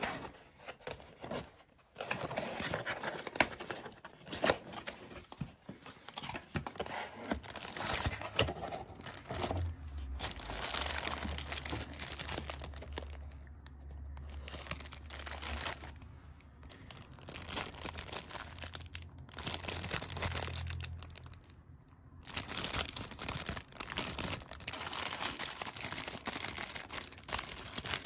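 A cardboard carry box being opened by hand, with a few sharp clicks as its tabs are pulled free, then clear plastic bags crinkling and being torn open in repeated bursts of rustling with short pauses.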